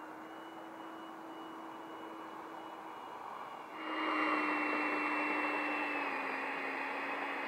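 90 mm electric ducted fan of a Freewing F-18 RC jet running at low power while it taxis on grass: a steady high whine over a rushing hiss. It turns suddenly louder about four seconds in.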